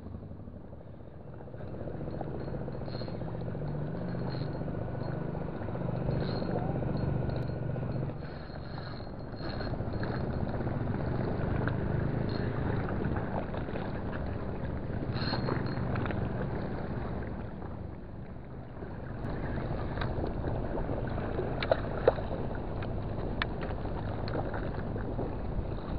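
Fishing reel's drag giving out line in intermittent spells as a hooked fish, a sembilang (eeltail catfish), pulls against it, over a steady low background rumble.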